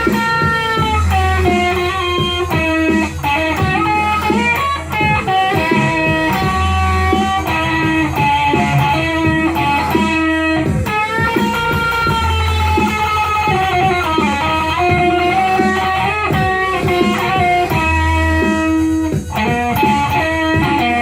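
Instrumental blues music: an electric guitar plays a lead line full of bent, sliding notes over a steady low bass.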